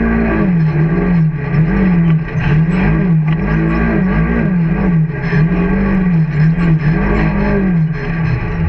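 Can-Am off-road vehicle's engine heard from on board, its revs rising and falling in repeated surges about once a second as it is driven through soft sand.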